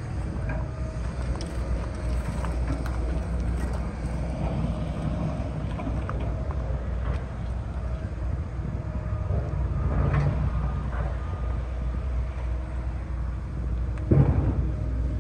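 A steady low engine rumble runs throughout, with a few faint knocks and a louder knock near the end.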